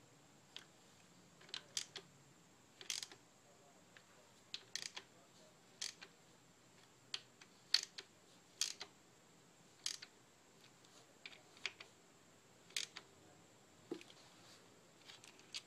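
Scattered light clicks and taps of chain, plastic chain guides and small metal parts being handled by hand while a balance-chain guide is fitted on a Saab B235 engine's timing end, about a dozen sharp clicks at irregular intervals.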